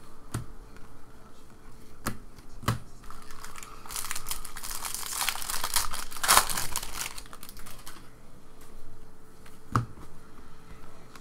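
Wrapper of a Bowman baseball card pack crinkling and tearing open, loudest about six seconds in. A few sharp clicks of the trading cards being handled come before it, and one comes near the end.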